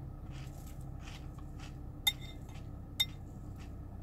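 A metal spoon clinks sharply twice against a cereal bowl, about two and three seconds in, between faint crunches of cereal being chewed, over a low steady hum.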